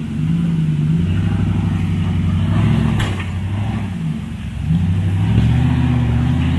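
Off-road 4x4 engine running under changing throttle, its pitch stepping up and down, with a dip about four seconds in before it picks up again. A single sharp click sounds about three seconds in.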